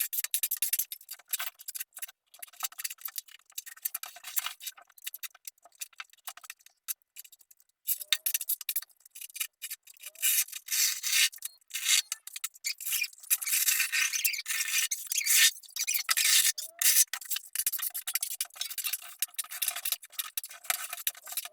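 Scraping and rubbing on a hard surface in many short, irregular strokes, with a brief pause midway and busier, louder strokes in the second half.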